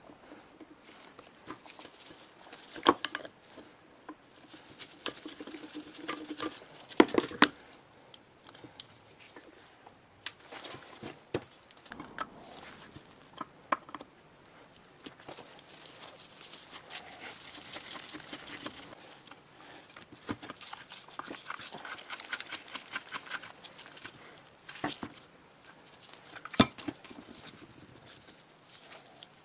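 Hand work on metal parts: scattered clicks and knocks of tools and parts being handled, with a few seconds of scraping around the middle and again a little later.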